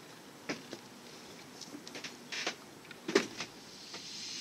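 Scattered soft knocks and rustles of footsteps on a sailboat deck and a braided rope line being handled and dropped onto it, the loudest a little after three seconds in. Near the end a steady hiss comes in.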